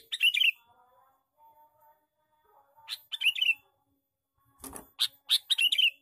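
Male sooty-headed bulbul (kutilang) calling: three bursts of quick, bubbly notes, falling and warbling in pitch. The first two are short, about three seconds apart, and the third, near the end, is longer.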